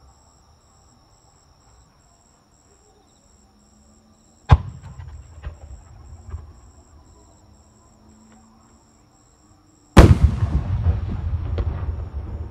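Aerial firework shells bursting: a sharp boom about four and a half seconds in with a rumbling echo and a few crackles, then a louder boom near ten seconds followed by a long, dense crackling rumble.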